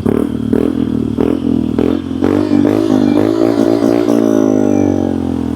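Yamaha Mio i 125 scooter's single-cylinder engine through a HUN V2 aftermarket exhaust with its silencer insert removed, throttle blipped in quick short revs at low rpm, then held a little higher and let fall back toward idle near the end.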